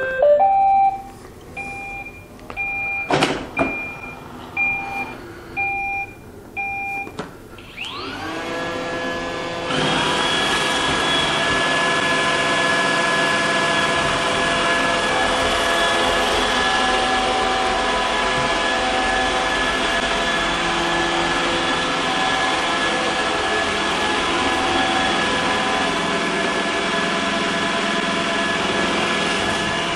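iRobot Roomba 960 robot vacuum starting a cleaning run: a string of short beeps, then its motors spin up with a rising whine about eight seconds in. From about ten seconds on the vacuum fan and brushes run steadily with a loud hum and several steady tones.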